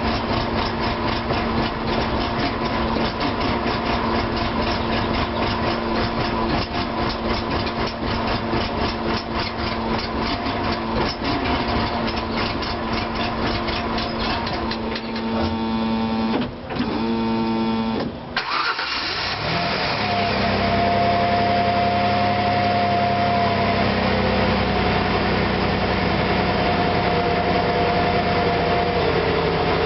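Car engine running at a rough, uneven idle: the sign of a misfire or a fuel or ignition fault. About two-thirds through it briefly falters and cuts out, then runs on with a steadier, smoother note.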